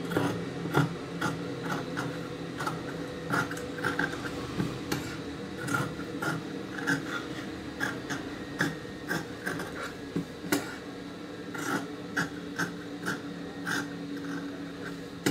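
Large tailor's shears cutting through layered cloth, a quick run of crisp snips at about two a second.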